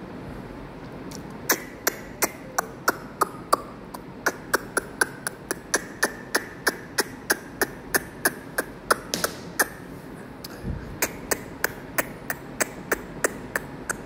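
A steady run of sharp clicks, about three a second, breaking off for about a second near the ten-second mark and then starting again.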